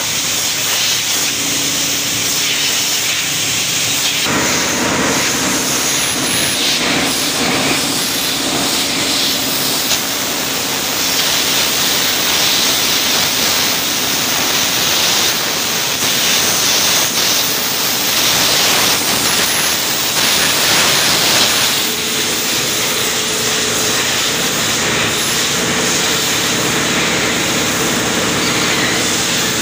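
Borewell drilling rig running: a steady machine drone under a loud continuous hiss, the drone shifting in pitch a few seconds in and again about two-thirds of the way through.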